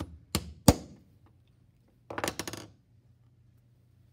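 Claw hammer tapping small nails into thin pine strips on a wooden workbench: three sharp strikes in the first second, the last loudest. A short clatter of quick clicks follows about two seconds in.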